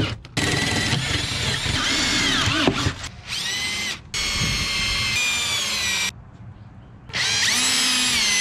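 Cordless drill running in four separate bursts, its motor pitch sagging and recovering as it drives screws to mount LED lights on a boat.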